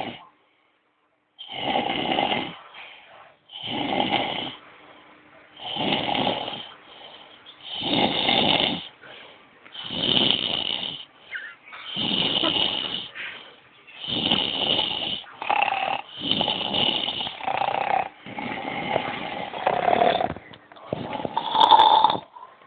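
Snoring: a snore on each breath, about one every two seconds, coming a little quicker towards the end.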